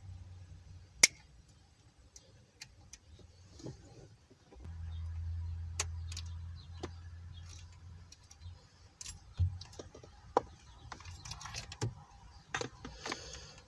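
Wire cutters snipping at a car radio's wiring harness: a string of sharp clicks, the loudest about a second in, among the rattle of wires and plastic connectors being handled. A low hum runs for a few seconds midway.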